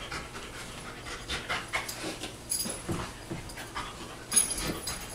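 A large shaggy dog panting in quick, irregular breaths at close range.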